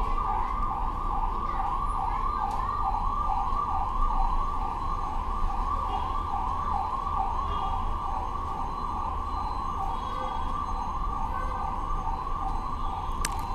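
A siren going continuously in quick repeated rising sweeps, about two or three a second, at a steady level over a low hum.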